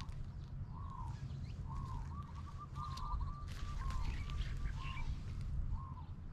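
A bird calling over and over in short notes that rise and fall in pitch, some spaced out and some in quick runs of three or four, over a steady low rumble.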